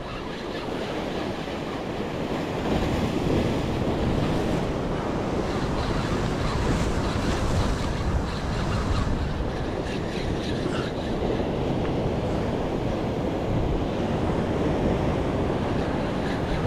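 Sea surf breaking and washing over rocks, a dense steady rush, with wind buffeting the microphone.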